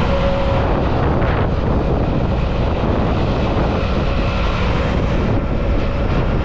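Auto-rickshaw (tuk-tuk) under way: its small engine running steadily, with road noise and wind on a microphone held out the side of the cab.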